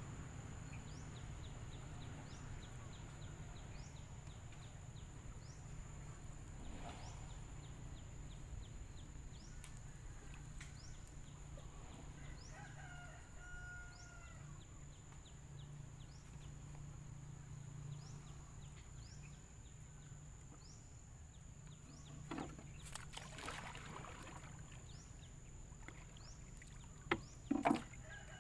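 Faint rural ambience: chickens clucking, a steady high-pitched insect drone with soft regular ticks over the first half, and a few sharp knocks near the end, the loudest sounds.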